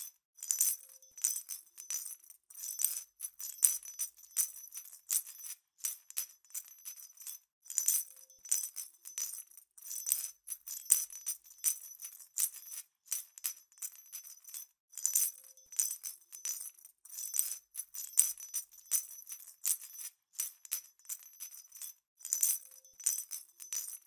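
Small jingle bells shaken in quick, irregular jangles, high and bright, with no low sound beneath them.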